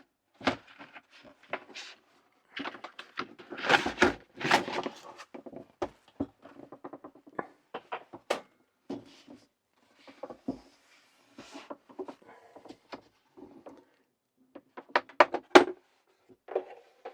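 A cardboard box being opened and its packaging handled: a run of rustles and scrapes with light knocks and sharp clicks, busiest about four seconds in and again near the end.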